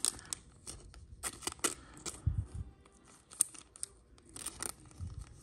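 Trading cards being handled: a run of sharp clicks and rustles as cards slide over one another, with two soft low thumps about two and five seconds in.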